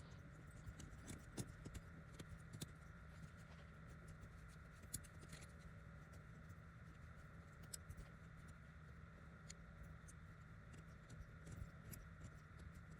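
Near silence: a faint steady hum with scattered small, irregular clicks and taps.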